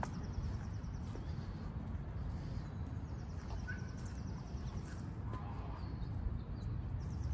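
Outdoor background: a steady low rumble with a few faint short chirps and light ticks.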